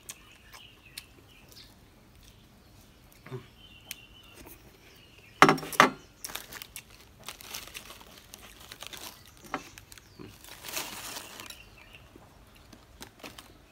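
Plastic biscuit wrapper crinkling as it is handled and opened, with scattered small clicks and one louder rustle about five and a half seconds in.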